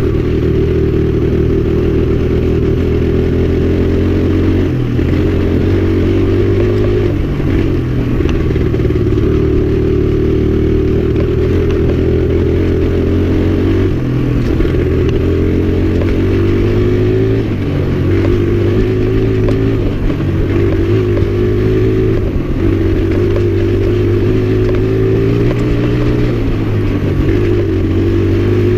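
1984 Suzuki DR100's small single-cylinder four-stroke engine running under load on a dirt trail. Its pitch keeps rising and falling with the throttle, with several brief drops in engine speed along the way.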